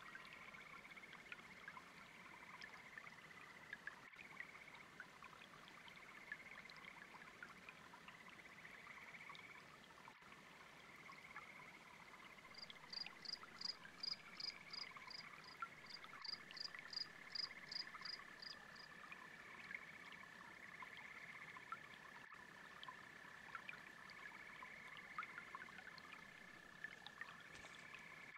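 Quiet chorus of frogs trilling in overlapping bursts over a faint babbling brook. For about six seconds in the middle, a high, thin chirp repeats about three times a second over the chorus.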